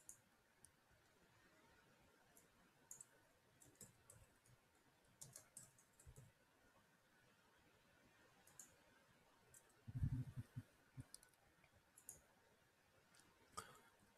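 Faint, scattered clicks of a computer keyboard and mouse as a column name is typed and settings are clicked, with a brief cluster of keystrokes about five seconds in. A louder low thump about ten seconds in.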